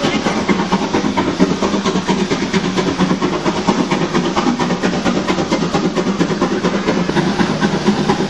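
Steam train hauled by geared steam locomotives running on a mountain logging line: a steady, rapid clatter of working locomotive and rolling car wheels on the rails.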